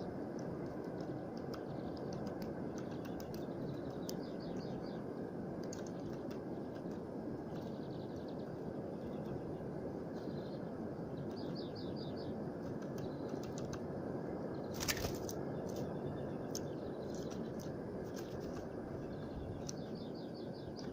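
Small birds, tits, at a feeder: short high chirps and quick runs of repeated notes every few seconds over a steady low background noise. One sharp knock comes about fifteen seconds in.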